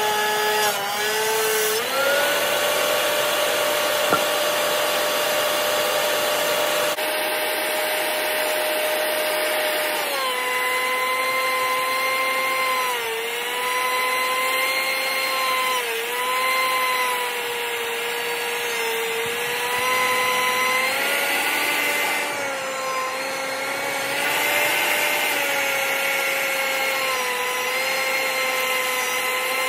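DeWalt benchtop thickness planer running with a steady high motor whine as wooden posts are planed. The whine rises about two seconds in as the cutterhead runs free, then from about ten seconds on drops and sags again and again as the next post feeds through and loads the cutterhead.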